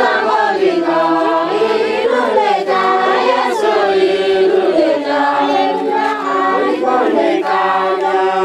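Group of Pokot women singing a greeting song together in chorus, many voices at once.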